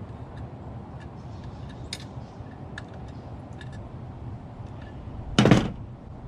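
Small metal clicks and taps of a screwdriver working tiny screws and nuts out of an old push-button telephone, over a steady low hum, with one loud clatter of a part hitting a hard surface about five seconds in.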